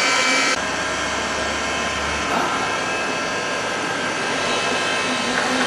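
Steady machine noise from a molybdenum-wire EDM cutting machine running. A low hum comes in about half a second in and stops about two seconds in.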